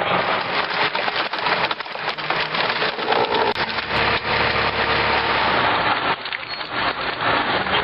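Large wood chipper tearing into logs: a dense, continuous crackling and splintering of wood being chipped, with sharp cracks throughout.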